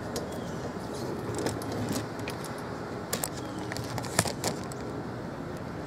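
Steady outdoor background noise with a few light clicks and knocks from the camera being handled and carried, the sharpest about four seconds in.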